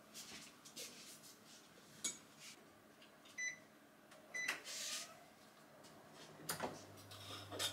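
Touch controls on an induction cooktop beep twice, about a second apart, as its buttons are pressed. A little later, with a click, the hob switches on and a low steady hum starts. Light clicks and knocks of kitchenware handling come in between.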